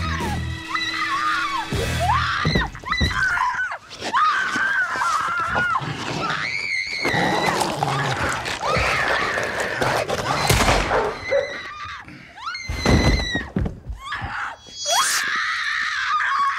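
A woman screaming hysterically in repeated high, wavering outbursts, over background music, with a few sharp hits.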